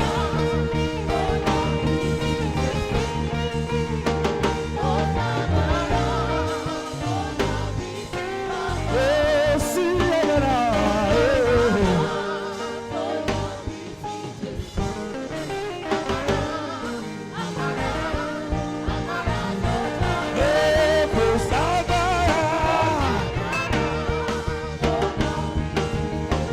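Saxophone playing a gospel worship melody with vibrato and pitch glides over a live backing band. The bass drops away for a few seconds about halfway through.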